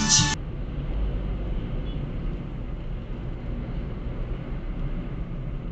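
Music cuts off sharply in the first half-second. After it comes the steady low rumble of a car driving, engine and road noise heard from inside the cabin through a dash cam's microphone.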